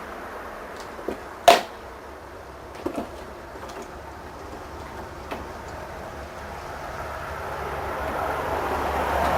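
A few sharp clicks and knocks over a steady background hiss; the loudest knock comes about one and a half seconds in, and the hiss swells near the end.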